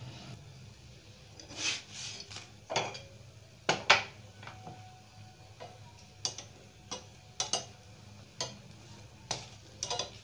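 Irregular sharp clicks and clinks of metal kitchen utensils as a roti is handled on the tawa and set on a wire roasting mesh over a gas burner, the loudest pair about four seconds in, over a faint low steady hum.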